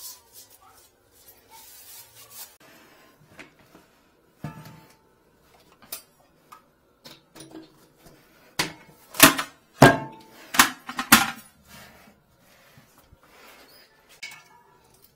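Scattered knocks and clatter of hard objects in a tiled bathroom, with a run of loud sharp clunks between about nine and eleven seconds in.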